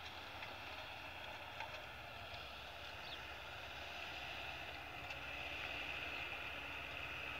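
Tractor engine running steadily while pulling a manure spreader, with a steady high hiss over a low engine hum that grows slightly louder in the second half.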